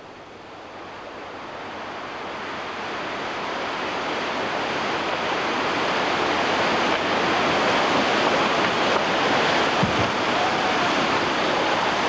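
A waterfall and whitewater rushing. The sound swells over the first six or seven seconds, then holds steady and loud.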